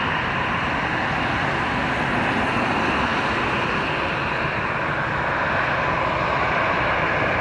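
Twin-engine jet airliner on final approach with its landing gear down: a steady jet engine rush at low approach power, even in level throughout.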